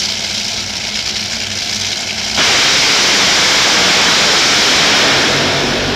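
Two Top Fuel dragsters, supercharged nitromethane-burning V8s, idle at the starting line, then go to full throttle at the launch about two and a half seconds in. The sound jumps to a sudden, very loud wall of noise that holds for a few seconds and then begins to fade as they run away down the track.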